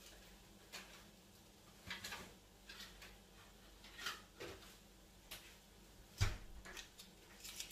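Scattered faint clicks and knocks from things being handled in a kitchen, with one heavier thump about six seconds in, over a low steady hum.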